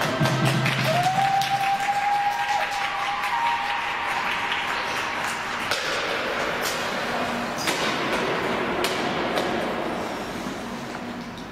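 Audience clapping in an ice rink, an even patter with a few louder claps, dying down near the end. The last held note of the programme music fades out in the first few seconds.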